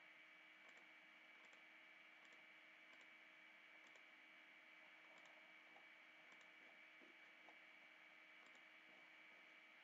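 Near silence with faint computer mouse clicks, about one a second, as edges are selected one by one. A faint steady high-pitched whine runs underneath.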